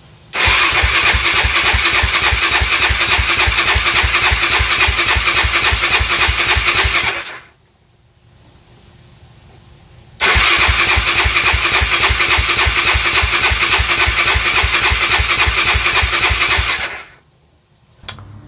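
2005 Yamaha YFZ450's single-cylinder four-stroke engine cranking on its electric starter in two long attempts of about seven seconds each, a steady fast chugging with a pause between, never catching. Near the end there is a short click. The quad has sat for about two years on old fuel, which the owner takes for the likely cause, suspecting the carburettor.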